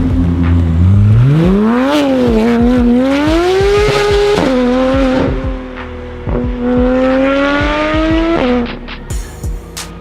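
A performance car's engine accelerating hard, its pitch climbing through the gears with quick upshifts about two and four and a half seconds in. About eight and a half seconds in the revs fall sharply and the exhaust crackles and pops.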